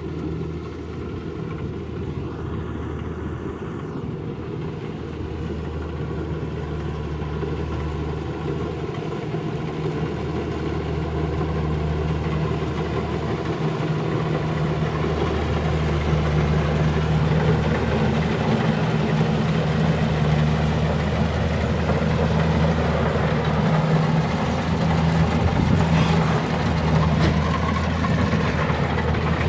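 Kubota combine harvester's diesel engine running with a steady hum, gradually growing louder.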